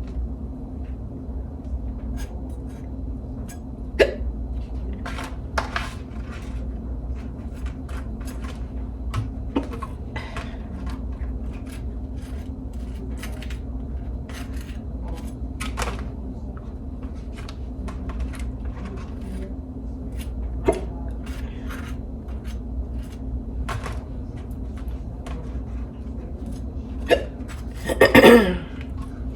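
A woman hiccuping now and then, the loudest hiccup near the end, over light clicks and scrapes of a knife on dishes as cream cheese and butter are spread on toast. A steady low hum underneath.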